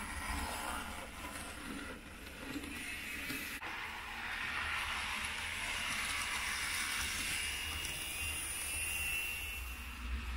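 N-gauge model train running along the track, a steady whirring of its small motor and wheels. It gets louder from about four seconds in as it passes close by, with a single sharp click a little before that.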